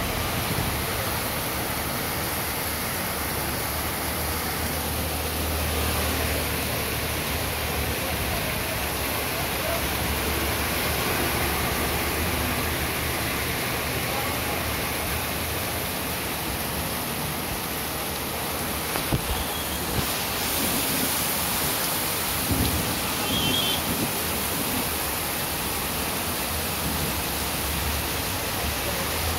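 Heavy rain falling in a steady downpour, hissing on a wet street and pouring off roof edges.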